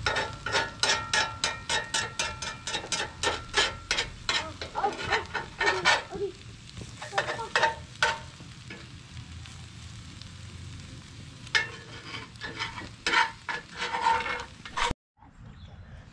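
A utensil stirring and scraping in a metal cooking pot, quick clicking strokes about three or four a second with a faint metallic ring. The strokes run for about eight seconds, pause, and start again for a few seconds near the end before the sound cuts off suddenly.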